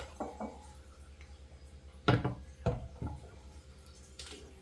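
Refrigerator door racks being fitted back into place: several short knocks and clunks, the loudest about two seconds in, over a steady low hum.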